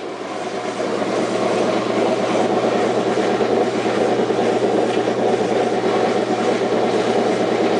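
Washing machine motor running with a steady hum and a dense, rattly rumble during the spin cycle while the drum does not spin: the motor is trying to spin it with nothing happening, a fault whose cause the owner does not know.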